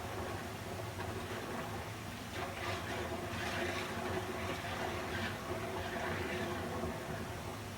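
Water flowing steadily, a continuous splashing rush with a steady low hum underneath.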